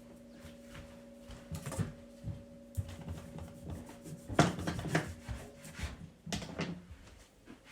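Scattered knocks, clicks and rubbing of kitchen items being handled on a counter, with a steady low hum that stops a little past halfway.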